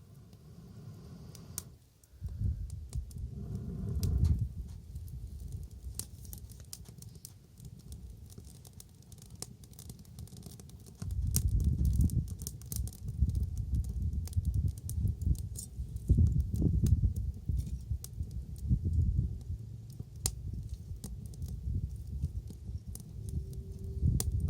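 Wood fire crackling, with irregular sharp pops and snaps over a low rumble that grows louder about eleven seconds in.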